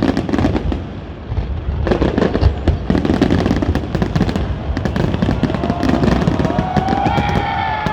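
New Year fireworks display going off in quick succession: many sharp bangs and crackles over a continuous low rumble.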